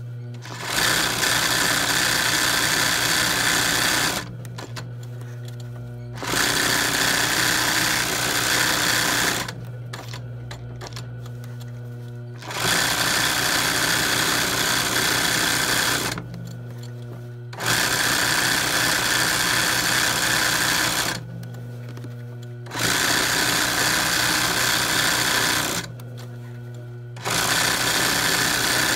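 ROYAL sewing machine stitching machine embroidery on cotton fabric: it runs fast in six spurts of three to four seconds each, stopping briefly between them as the fabric is turned, while a steady hum carries on through the pauses.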